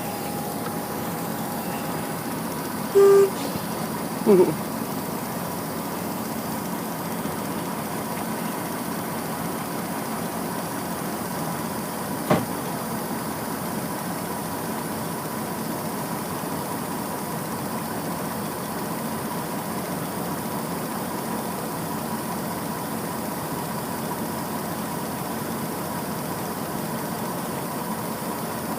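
Harvesting machinery running steadily with an engine drone and a thin steady whine. Two short loud tones sound about three and four seconds in, the first like a horn toot and the second sliding in pitch, and a single sharp click comes near the middle.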